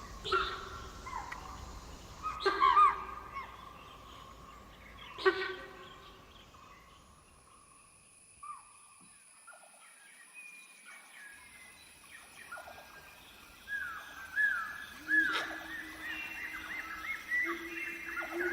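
Wild birds calling: three loud calls in the first few seconds, then a quieter stretch, then a busy run of short falling chirps from about two-thirds of the way in.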